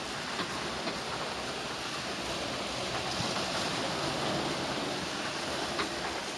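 Washing machine running: a steady churning rush of water with a few faint clicks.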